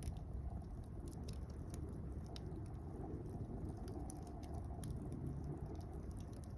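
Wood fire of mixed softwood and hardwood logs burning: irregular sharp crackles and pops over a low, steady rush of flames.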